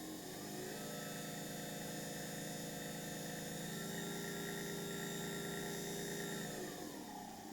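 Car windscreen wiper motor, rigged as a spit-roast motor on a mains power adapter, running with a steady electric hum and whine, then slowing and winding down near the end.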